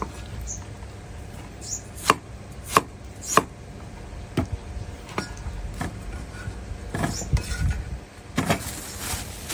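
Cleaver chopping purple yam on a round wooden chopping block: irregular sharp knocks of the blade striking the wood, the loudest three in quick succession about two to three and a half seconds in, with more spread through the rest.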